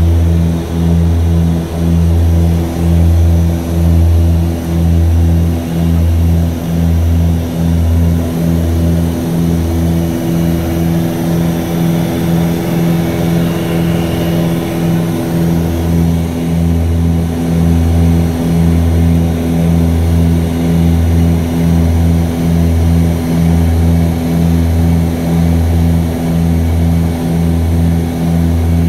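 Antonov An-24's twin turboprop engines and propellers heard from inside the cockpit in cruise: a loud, steady low drone that swells and fades about once a second, and the pulsing blurs for a few seconds midway. The pulsing is the beat of two propellers turning at slightly different speeds.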